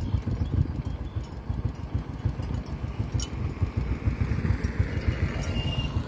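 Motorcycle engine running steadily at low revs, with a rising whine near the end.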